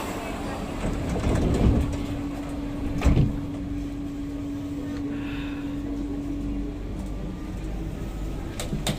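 Inside a Kawasaki–CRRC Qingdao Sifang C151A metro car as it moves off, with rumbling and two loud clunks from the bogie, the second and sharpest about three seconds in: the odd bogie noises this car makes. A steady hum runs for about five seconds.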